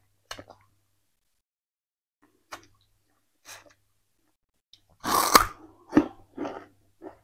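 Raw sugarcane being chewed: scattered short crunches and crackles of the fibrous cane, then a louder burst of crunching with a sharp crack about five seconds in.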